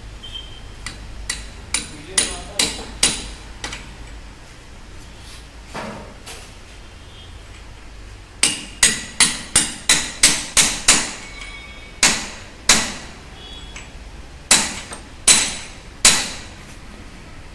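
Hammer blows on metal, driving the new rack bush into the end of a Honda City steering rack held in a vice. Sharp ringing strikes in irregular groups, with a quick run of about three a second in the middle and single heavy blows near the end.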